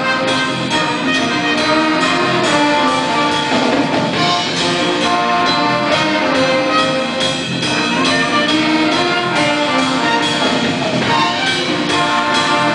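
A jazz big band playing together, with trumpets, trombones and saxophones over the rhythm section, loud and steady throughout.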